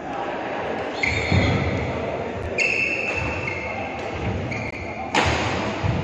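Court shoes squeaking on a synthetic badminton court mat in a large hall: several short high squeals as players stop and turn, with thudding footfalls and a sharp crack of a racket hitting the shuttlecock about five seconds in.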